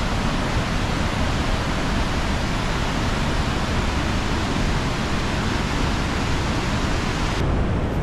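Steady rushing roar of the Sultan waterfall and the river in the gorge below. Near the end the upper hiss cuts off abruptly.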